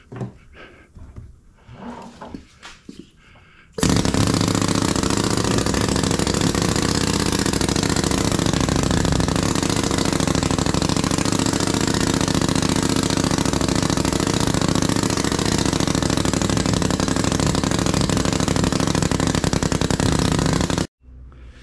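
Pneumatic sand rammer running, hammering foundry sand down into a molding flask: a loud, steady, rapid hammering that starts abruptly about four seconds in and cuts off just before the end. Before it, soft scrapes and knocks of hands working the loose sand.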